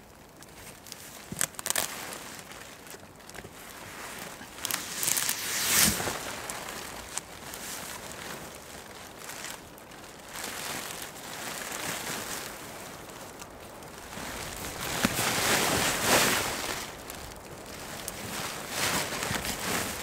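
Rustling and crinkling of fabric and gear handled close by, such as a sleeping bag being pulled over, swelling louder twice. A few sharp crackle-like clicks come about two seconds in.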